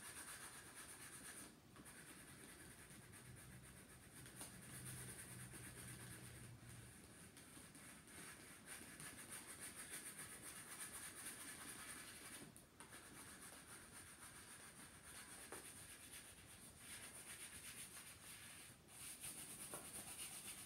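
Faint scratchy rubbing of a green crayon colouring in on a paper plate, continuous strokes with a few brief pauses.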